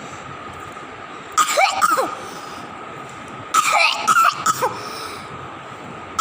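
Baby coughing in two fits: a short one about a second and a half in, and a run of several quick coughs around four seconds in. It is a persistent cough that has gone on for a month without doctors finding the cause.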